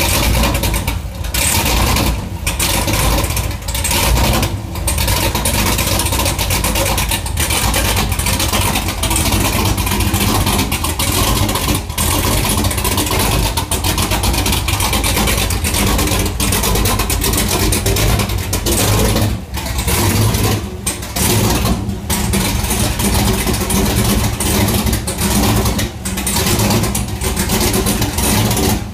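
Chevrolet Corvette V8 fitted with a BTR Stage 4 camshaft running at a loud, uneven idle, its loudness dipping and surging every second or so.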